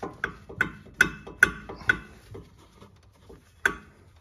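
Short, sharp knocks and clunks as the metal rear trailing arm carrier bracket is wrestled by hand off its rubber bush: a quick run in the first two and a half seconds, then one more about three and a half seconds in.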